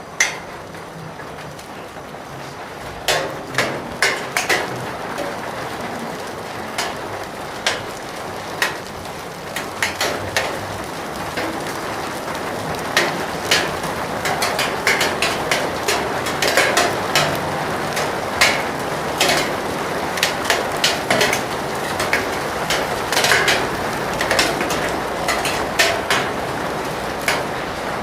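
Steady rain with large drops striking a hard surface in loud, irregular taps. The rain and the taps grow heavier and more frequent partway through.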